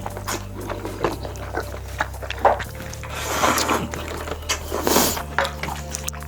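Close-miked eating sounds, chewing and mouth noises, with two longer loud noisy stretches about three and five seconds in.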